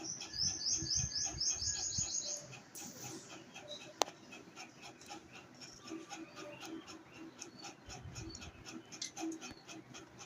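Parrot chirping: a fast run of about ten short, high, falling chirps over the first two seconds, then quieter scattered calls. A single sharp click about four seconds in.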